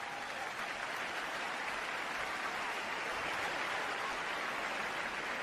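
Crowd applauding, a steady clapping that swells in and holds.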